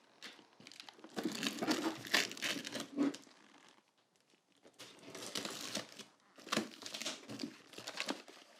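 Cardboard box and paper packing being opened and handled: crinkling and rustling in bursts, with a quiet pause about halfway through.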